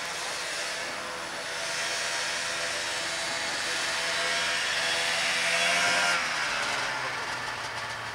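Snowmobile engines running as the sleds ride around, the engine note rising and falling with the throttle and growing louder about six seconds in before easing off.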